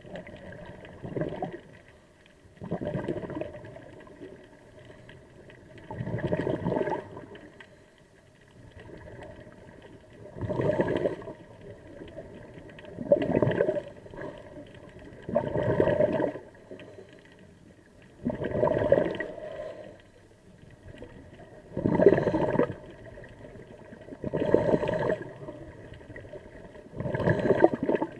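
Scuba diver breathing through a regulator underwater: bursts of exhaled bubbles gurgling, each about a second long, every two to three seconds, with quieter stretches between.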